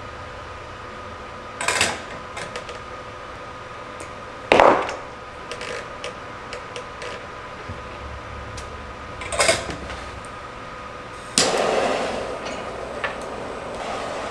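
Tools and parts knocked and set down on a workbench during soldering, three sharp clatters over a steady faint hum. About eleven seconds in, a jet-flame torch lighter lights and hisses, fading over a couple of seconds.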